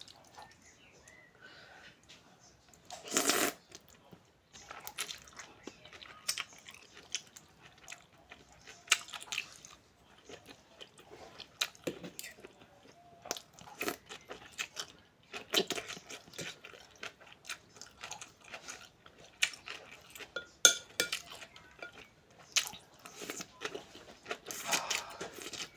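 A person eating close to the microphone: crunchy chewing and biting, with scattered sharp clicks and a louder burst about three seconds in.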